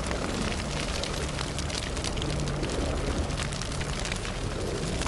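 Forest fire sound effect: a steady rushing burn with dense, continuous crackling and small pops.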